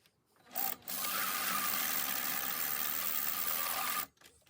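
Electric sewing machine running steadily for about three seconds, starting about a second in and stopping abruptly.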